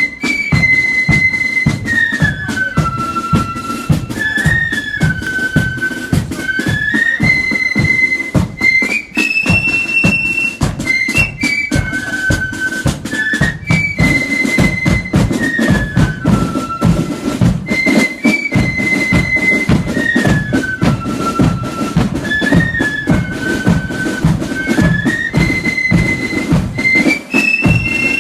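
Marching flute band playing a march: a high flute melody over a steady beat of drums.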